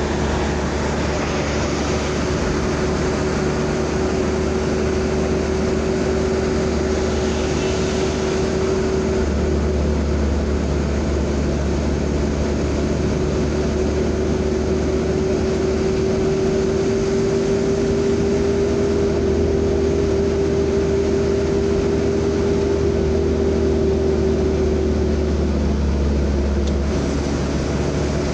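3-ton pickup truck under way: steady engine and road noise with a low rumble. A steady whine creeps slightly up in pitch and breaks off near the end, as the rumble eases.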